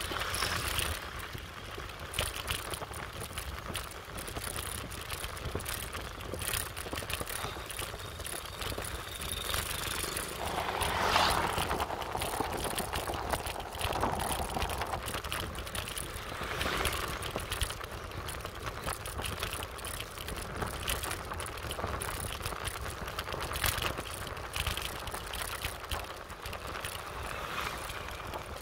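Bicycle ride on a paved road heard from a handlebar-mounted phone: a steady rush of wind and road noise with bike rattles, swelling louder about eleven seconds in.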